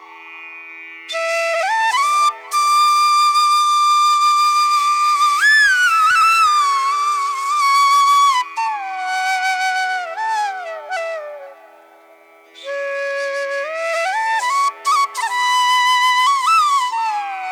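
Flute music: a melody of long held notes with slides and bends, played over a steady drone. It falls quiet briefly near the start and again midway.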